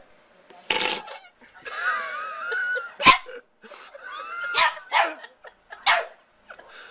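A dog barking in about five short, sharp barks, with high, wavering whines drawn out between them.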